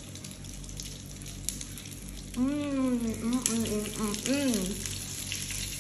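A person eating a bite of fried chicken cutlet and making several appreciative 'mmm' hums, rising and falling in pitch, from about halfway through, over a steady background hiss.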